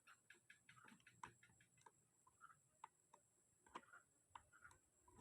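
Near silence with faint, scattered small clicks and taps, at times several a second.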